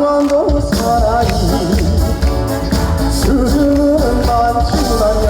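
Live trot song with a band accompanying at a steady beat and a voice singing over it.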